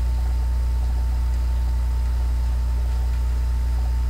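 A steady low hum, with a faint high whine and a light even hiss over it.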